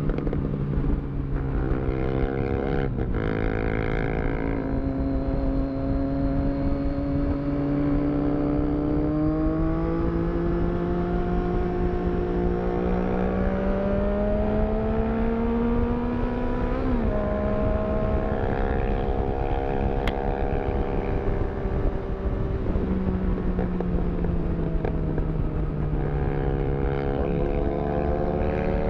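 Triumph Street Triple 675 motorcycle engine running under way while riding. The engine note climbs slowly through long pulls, with pitch changes at gear shifts about three seconds in, around the middle and again a few seconds later.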